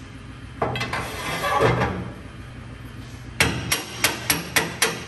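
A steering shaft scraping as it is pushed through the column opening, then a hammer tapping it home onto its coupler: a quick run of about seven sharp metal strikes, three or four a second.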